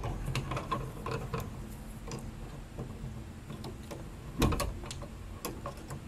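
Light, scattered clicks and ticks of wire strippers and stiff copper house wire being handled and bent at a wall box, with one louder knock about four and a half seconds in.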